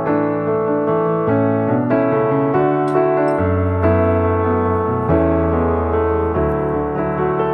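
Background music: piano playing chords over a changing bass line.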